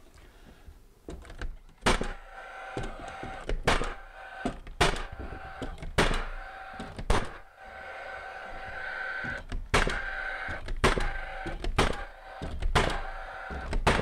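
Cordless framing nailer firing nails through plywood sheathing into the wall studs: about nine sharp shots, one every second or two, with a steady whir running between them.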